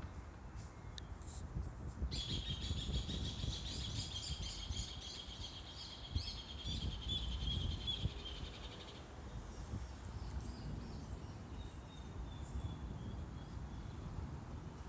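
Storm wind gusting and rumbling, buffeting the microphone. From about two seconds in until about nine seconds, a high, rapid chirping runs over it.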